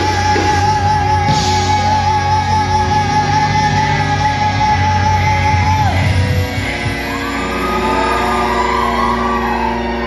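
Live rock band playing loud on stage, with electric guitar and singing. A long held note runs until about six seconds in, then falls away, and the music eases a little after it.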